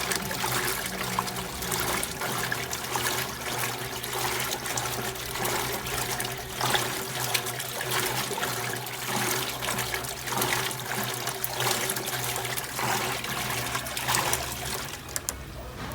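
Water running in an Electrolux LT12F 12 kg washing machine, a steady flow that cuts off shortly before the end.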